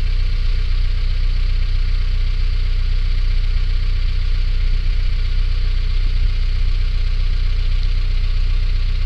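A vehicle engine idling, with a steady low hum that holds even throughout.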